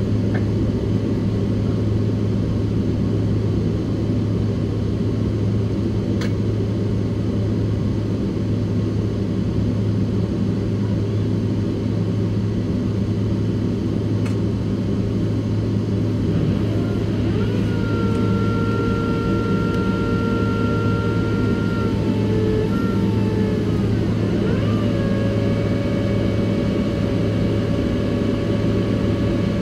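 Cabin noise inside a Boeing 767-300ER on the ground before takeoff: a steady, loud low rumble of engines and airframe. About halfway through, a whine made of several steady tones comes in; a few seconds later it wavers, steps up in pitch and holds.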